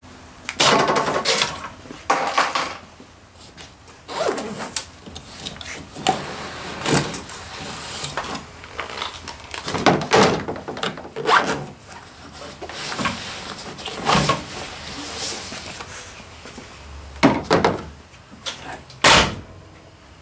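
Irregular scraping, rubbing and knocks as hands slide gear in and out of a Line-X–coated galvanized steel gun locker in a pickup bed, a dozen or so short bursts with quieter gaps between.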